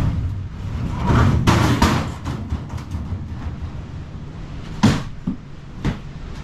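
Steel file cabinet being shoved across the wooden floor of a moving truck's box, giving a rough scraping rumble about a second in, followed by two sharp knocks near the end as a plastic bin is picked up and set down on a dolly.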